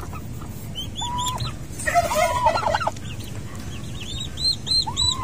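Newly hatched turkey poults peeping in short, high chirps, with a quick run of peeps near the end. Around the middle comes a louder burst of lower clucking calls from an adult fowl.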